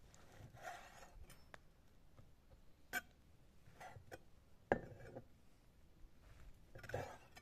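Chef's knife dicing raw lamb liver on a stone slab: a few irregular, soft knocks and clicks of the blade meeting the stone, the sharpest a little past halfway.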